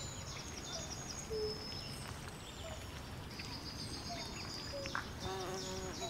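Swamp ambience of insects and birds: repeated high chirping trills go on throughout over a steady low rumble. Short lower single-pitch notes come here and there, and a brief pitched call sounds about five seconds in.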